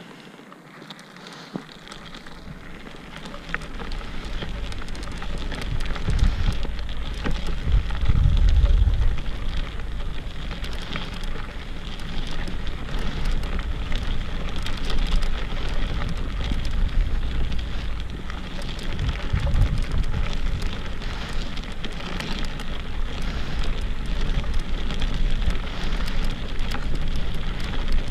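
Wheelchair wheels rolling over a fine gravel path: a steady crackle of small ticks from the grit, with a low rumble that swells at times. It builds up over the first few seconds as the chair gets moving.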